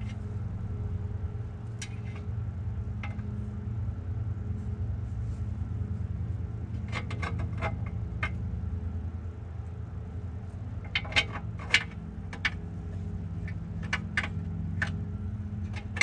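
Light metal clinks and taps of a steel spacer against the car's frame as it is worked at a hole it won't go into, in a few short clusters, over a steady low hum.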